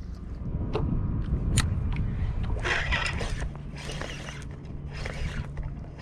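Steady low rumble of wind and water around a small skiff, with a few sharp clicks in the first two seconds and three short hissing bursts in the middle.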